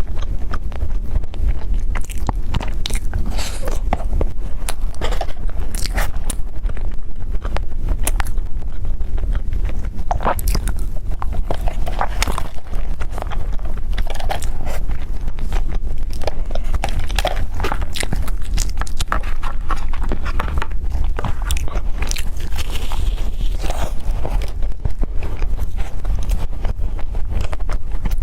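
Close-miked eating: biting and chewing with a dense stream of wet mouth clicks and small crunches, over a steady low hum.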